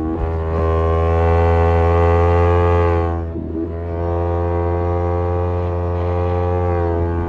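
Kawasaki Z250 running under way through a SeaPro aftermarket muffler, a steady, loud exhaust note. Near the middle the note dips and wavers for about half a second as the throttle eases, then it picks up again at much the same pitch.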